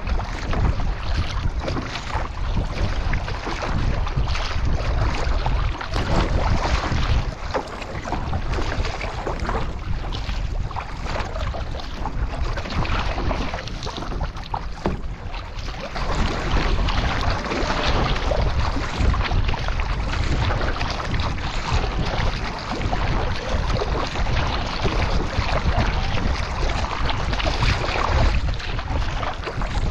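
Wind buffeting the microphone over the rush of water along a kayak's hull, with the splashes of paddle strokes.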